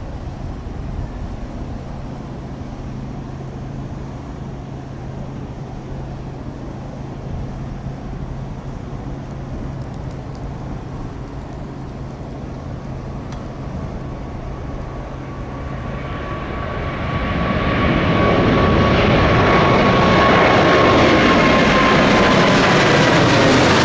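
Steady low background rumble and hum, then a jet airliner's engines grow loud from about sixteen seconds in as it passes close by, with a whine that slides slowly down in pitch.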